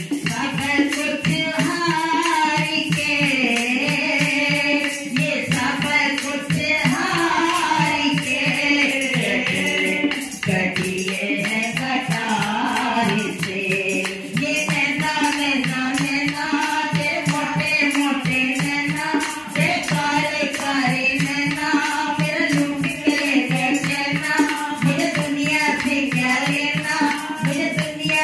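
Women singing a Hindi Krishna bhajan into microphones, with hand percussion keeping a steady beat throughout.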